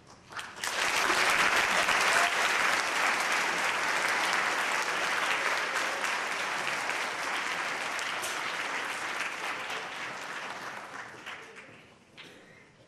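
Audience applauding in an auditorium: the clapping rises quickly about half a second in, holds for several seconds, then fades out gradually near the end.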